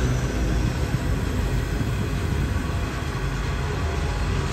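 Hopper wagons of a freight train rolling past on a curve: a steady low rumble of steel wheels on rail.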